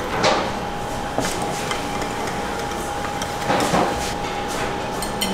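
Knives and forks scraping and clinking on plates a few times, over a steady room hum with a constant thin whine.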